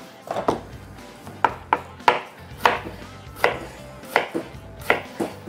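Chef's knife dicing a peeled apple on a plastic cutting board: about ten sharp knife strikes on the board, irregularly spaced.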